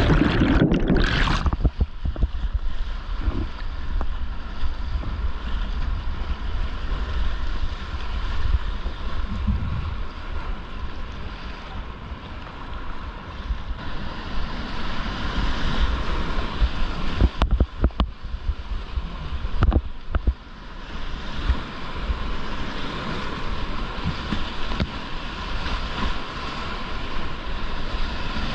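Whitewater of a river rapid rushing steadily, with wind buffeting a GoPro's microphone. A few sharp knocks come about two-thirds of the way through.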